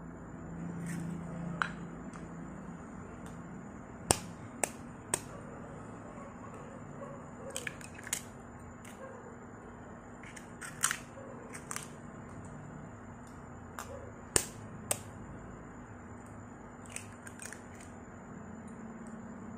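Raw eggs being cracked on the rim of a ceramic bowl: a series of sharp taps, several in quick groups, as the shells break.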